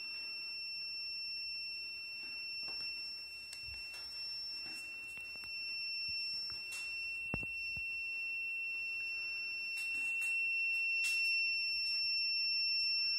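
Handheld CO2 meter's warning alarm sounding as one continuous high-pitched tone: the CO2 level it reads inside a worn respirator has passed the safe limit.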